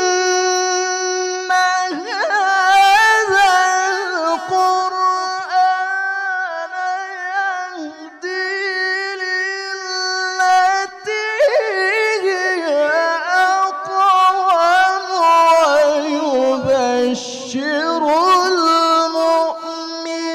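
A male qari chanting Quranic tilawah (mujawwad recitation) in a high, strong voice. He holds long notes and decorates them with rapid melodic turns, pausing briefly for breath a few times.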